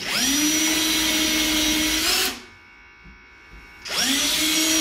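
Cordless drill with a countersink bit cutting recesses for screw heads in a wooden stretcher strip. The motor spins up with a rising whine, runs steadily for about two seconds, stops, and starts again near the end.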